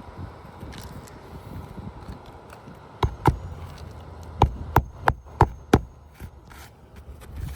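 Hammer driving roofing nails through asphalt shingles: two ringing blows about three seconds in, then a quick run of five blows about a third of a second apart.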